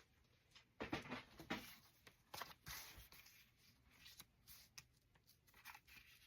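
Faint, intermittent rustling and light taps of paper and card being handled, against near silence.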